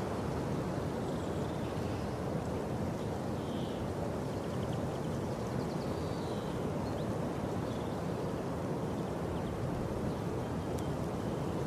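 A steady rushing outdoor noise, heaviest in the low range, with faint short high chirps now and then.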